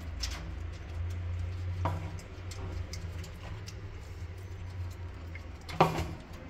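Scattered light clicks and ticks over a low steady hum, with a small knock about two seconds in and a sharper, louder knock near the end.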